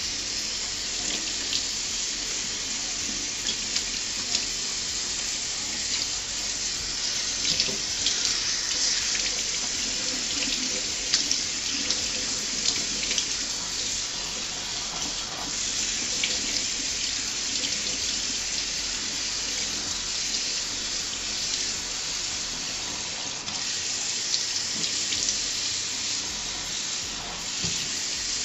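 Kitchen faucet running steadily, the water splashing over hair being rinsed and into a stainless steel sink, with small irregular splashes as the hands work the wet hair.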